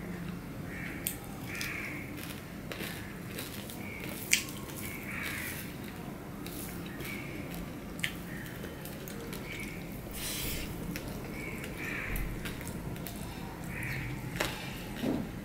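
Eating by hand from a steel plate: fingers mixing rice and fish curry, chewing and mouth sounds, and sharp clicks of fingers or food against the metal plate, the loudest about four seconds in. Short calls repeat every second or two in the background.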